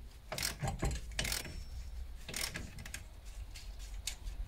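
Wrench working a shock absorber mounting bolt loose on a 1999 Opel Astra's front suspension: a handful of short, irregular ratcheting clicks and metal scrapes.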